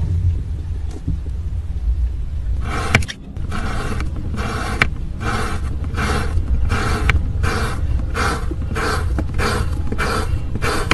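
Kinetic sand being sliced with blades: a steady run of soft crunching strokes, a little over two a second, beginning about three seconds in, over a low rumble.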